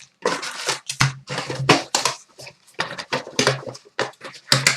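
Trading-card pack wrappers being torn open and handled: a run of quick crinkling and tearing rustles.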